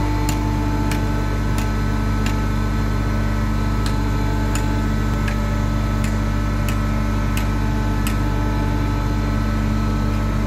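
Construction-site machinery running steadily: a constant hum with several fixed tones, and a regular sharp tick about every two-thirds of a second that stops about eight seconds in.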